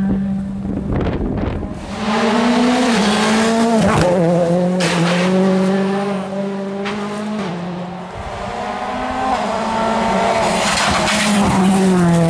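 World Rally cars' 1.6-litre turbocharged four-cylinder engines at full throttle, their note rising and dropping through quick gear changes, with a few sharp cracks; several separate passes follow one another.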